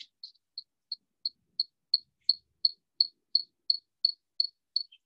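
Insect chirping: a short, high chirp repeated evenly about three times a second, growing louder over the first couple of seconds.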